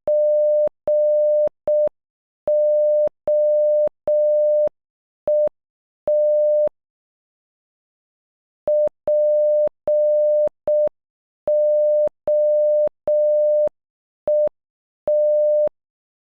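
Morse code beeps, one steady tone keyed in dots and dashes at half speed, spelling POET (.--. --- . -). The first word is already partway through its P, then runs through O, E and T. After a pause of about two seconds the whole word is sent again.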